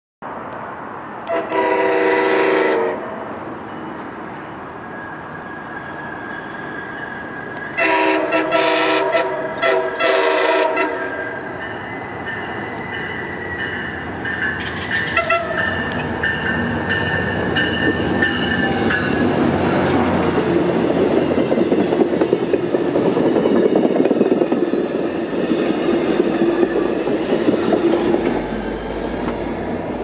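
Diesel passenger locomotive's air horn, an MP36PH-3C's, sounding a chord: one blast, then about eight seconds in a quick run of short blasts and more held horn. The train then passes at speed, wheels clattering over the rail joints and the diesel engines rumbling, with the deep engine sound of the GP39H-2 pushing on the rear near the end.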